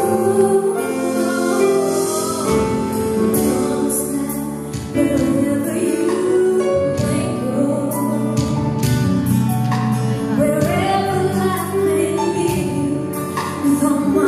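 A woman singing a ballad into a microphone over instrumental accompaniment, heard live through the hall's sound system.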